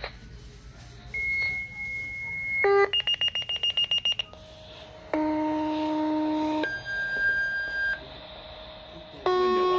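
Fire station alerting tones: a sequence of steady electronic tones, each held for a second or so at a different pitch, with a rapid pulsing beep about three seconds in, calling units out to a dispatch.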